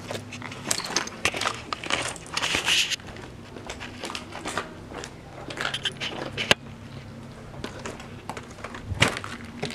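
Footsteps in sneakers going down concrete stairs strewn with grit and rubble: irregular crunching and scraping underfoot, busiest in the first few seconds, with a sharper click about six and a half seconds in.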